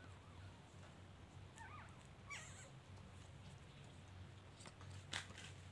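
Faint sounds of a dog eating from a foam takeaway box: a few soft clicks of chewing and licking, the most distinct about five seconds in. About two seconds in come two brief high squeaky calls.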